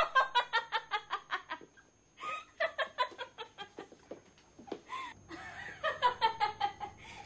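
A person laughing in three bouts of quick ha-ha pulses, about six a second, with short breaks between the bouts.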